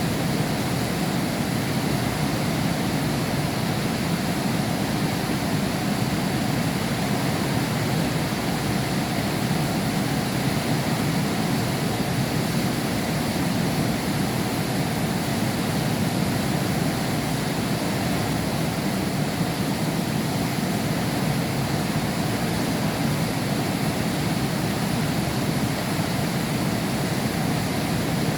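Heavy rain pouring steadily behind window glass: a constant rushing hiss with a strong low rumble and no breaks.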